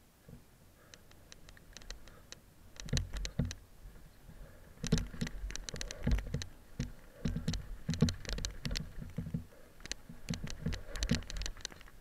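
Mountain bike rattling over rough dirt singletrack: bursts of sharp clicks and knocks with low thumps as the wheels hit bumps. It begins about three seconds in and is busiest from about five seconds on.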